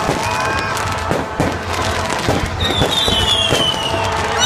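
Fireworks display: a rapid string of aerial shell bangs and crackling bursts, with a high falling whistle about two-thirds of the way through.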